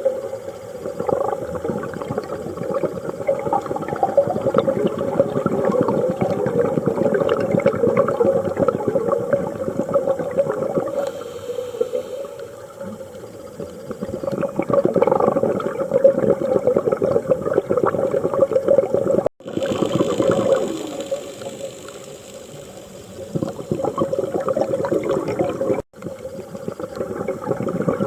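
Scuba diver breathing underwater through a regulator: long bubbling, crackling streams of exhaled air that swell and fade, with quieter stretches between breaths.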